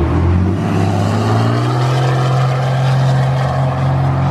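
A car engine running hard under load, its note rising over the first second and a half, then holding steady.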